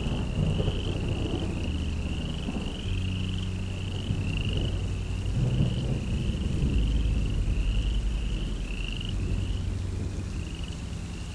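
Steady rhythmic animal chirping, about two short rising chirps a second, over a low rumbling drone, like a night-time chorus of frogs or insects.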